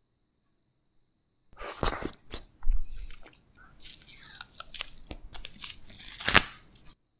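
Sealed plastic film lid being peeled off a small jelly cup: crackling and tearing with sharp snaps, starting about a second and a half in, the loudest snap near the end.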